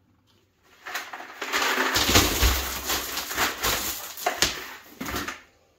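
Wet, partly frozen 2-inch stone being dumped in, a continuous clattering rattle of many small stone knocks with some low thuds, starting about a second in and dying away near the end.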